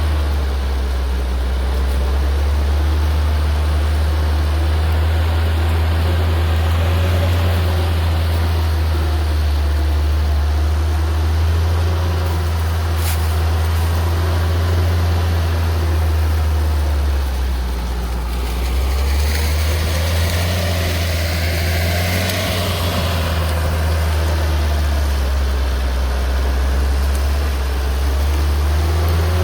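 Homemade rotary tiller's motor running steadily with a strong low hum. About two-thirds of the way through, a rougher, higher churning noise joins for a few seconds, then fades.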